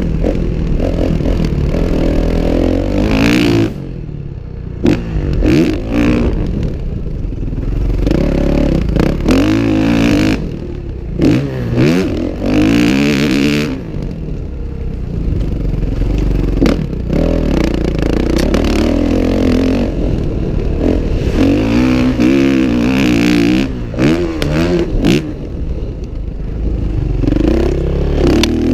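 Dirt bike engine revving up and falling back again and again as it is ridden hard around a muddy motocross track, heard close from a helmet-mounted camera. Several sharp knocks and clattering come from the bike over the bumps.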